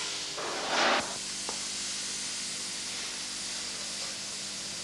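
Steady hiss with a faint low hum, the background noise of an old camcorder recording. About half a second in comes a short, loud noisy burst lasting about half a second, and a faint click follows soon after.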